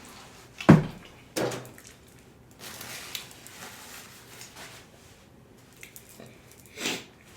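Close-miked eating of KFC fried chicken: wet chewing and lip smacking, with three sudden louder bites or smacks, the loudest about a second in and another near the end.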